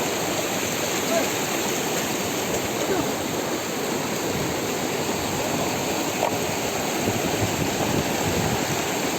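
River stream water rushing steadily, a continuous even wash of flowing water.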